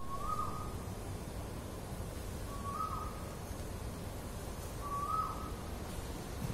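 A bird calling three times, evenly spaced: a short clear note that rises and then drops slightly. Under it runs a steady low rumble.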